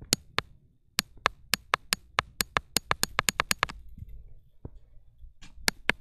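A fast series of sharp taps close to the microphone: two at the start, a quick run of about fifteen from about one second in to three and a half seconds, then three more near the end.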